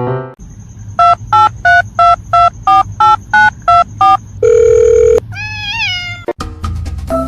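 Telephone keypad tones: about ten quick dialing beeps, then a long low buzzing tone, then a short pitched call that rises and falls.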